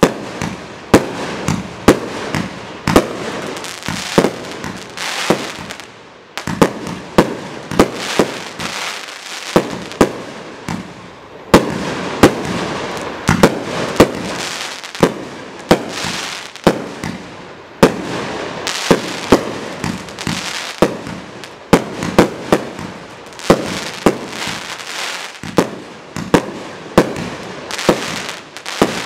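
A 30 mm, 120-shot consumer firework cake (Chain Reaction FC30120-1) firing in sequence: sharp bangs of shells launching and bursting about once or twice a second, with a continuous hiss between them and a brief lull about ten seconds in.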